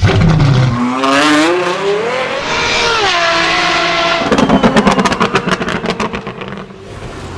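Apollo IE's 6.3-litre naturally aspirated V12 revving up in a rising high-pitched scream, its pitch dropping about three seconds in. It is followed by a rapid string of exhaust crackles and pops that fade away near the end.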